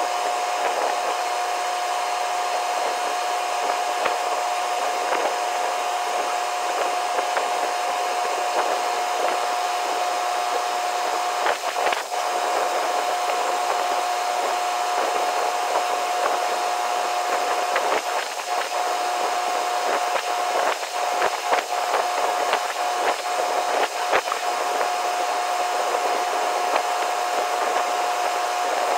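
Steady whirring machinery noise with a constant mid-pitched hum, and a few short light knocks and taps scattered through the second half.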